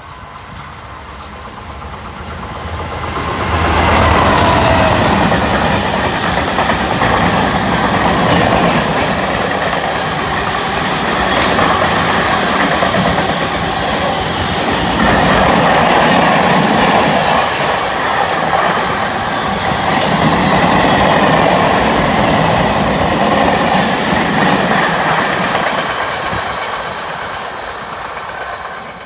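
Diesel-hauled freight train of covered wagons passing at speed. The locomotive's sound builds and turns loud about four seconds in, then the long string of wagons goes by with wheels clattering on the rails before it fades away near the end.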